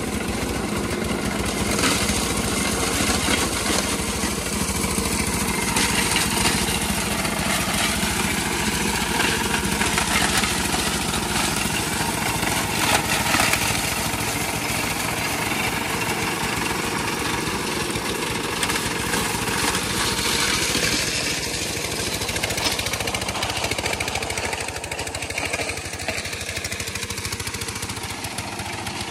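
A small engine-driven construction machine running steadily and loudly, the site's machinery working again after a repair.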